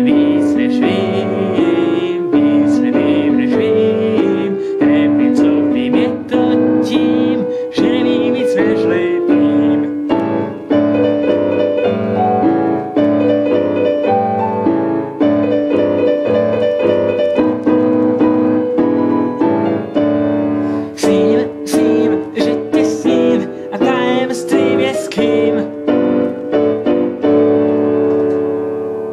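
Piano music, a run of chords and melody that fades out near the end.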